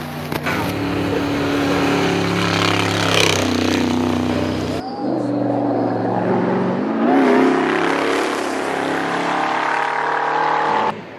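1949 Cadillac 62 Coupe racing car's engine running hard as it climbs past under load, with a sudden change in the sound about five seconds in where two recordings are joined.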